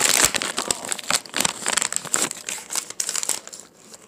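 A sheet of notebook paper crinkling as it is folded and creased by hand. It is loudest in the first moment and gets sparser and quieter near the end.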